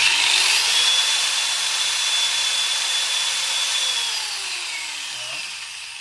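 Handheld electric wall chaser (wall-cutting saw) motor switched on. It whines up to speed, runs steadily for about three seconds, then winds down in a falling whine after release.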